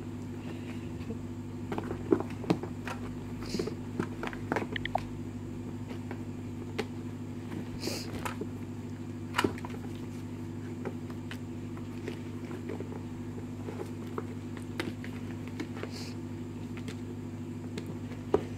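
Kittens pawing and clambering on a cardboard shoebox: scattered light taps and a few brief scratches, over a steady low mechanical hum.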